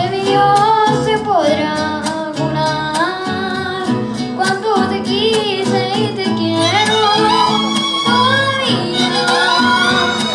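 Mariachi band playing: violins and trumpets carrying the melody over strummed guitars.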